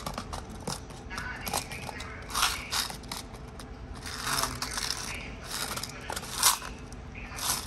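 Small clear plastic storage boxes of nail rhinestones and charms being handled and opened and closed, giving irregular plastic clicks and scrapes, with one sharper click about six and a half seconds in.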